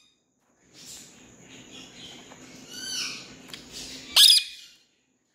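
Pet parakeet calling: a few soft chirps that fall in pitch about three seconds in, then one short, shrill screech about four seconds in, the loudest sound.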